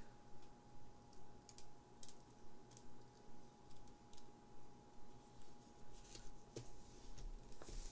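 Faint clicks and scratches of a small blade and fingertips picking at the shrink wrap on a cardboard trading-card box, opening the plastic, with a louder plastic crinkle near the end. A faint steady hum runs underneath.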